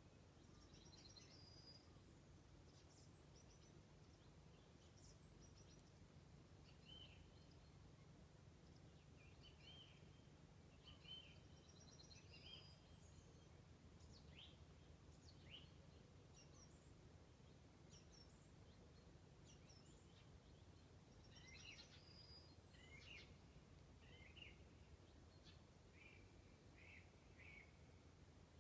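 Faint birdsong: several birds giving short chirps and whistled notes on and off throughout, over a steady low rumble.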